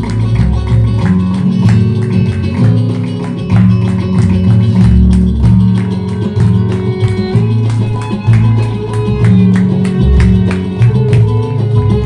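Music with a plucked guitar over a bass line and a steady beat.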